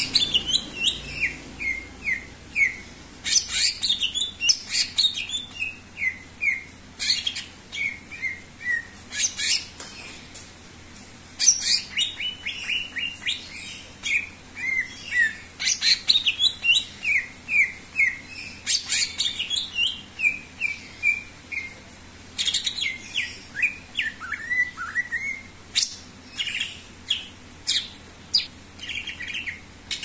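Cucak ijo (greater green leafbird) singing vigorously: a fast, continuous run of short chirps and downward-sweeping whistled notes, in phrases broken by brief pauses.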